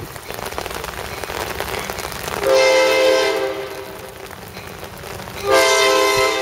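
Locomotive horn of an approaching Amtrak Pacific Surfliner passenger train: one blast of about a second, then a second blast starting near the end. Steady rain hiss lies underneath.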